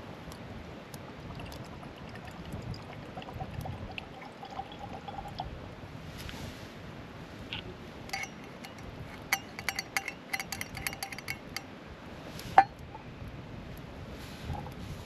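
Whisky being poured from a metal hip flask into a whisky glass, followed by a run of light clinks of metal against glass. Near the end comes one sharp knock, the loudest sound in the stretch.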